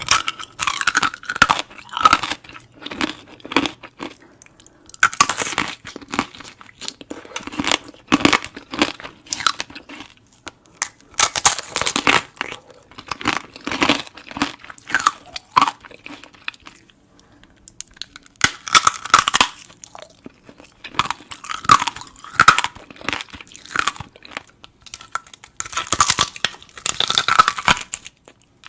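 Close-miked eating: crunching and chewing in runs of a few seconds, with brief pauses between mouthfuls.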